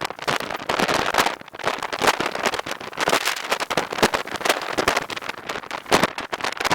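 Heavy rain hitting tent fabric: a dense, irregular patter of drop hits.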